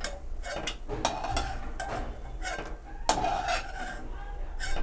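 Slotted steel spoon scraping and clinking irregularly against a metal kadhai while fried chana dal is scooped out of the hot oil.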